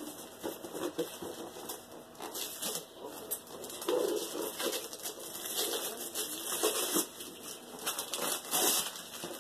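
Gift wrapping paper being torn and crinkled as a present is unwrapped, in irregular rips and rustles.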